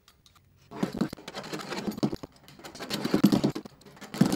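Utility knife blade scratching quickly back and forth across the bat house's tough outer shell, roughening it so bats can grip. It is a rapid run of scraping strokes that starts about a second in.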